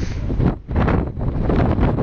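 Strong mountain wind, around 70 mph, buffeting the camera's microphone in loud gusts, with a brief lull about half a second in.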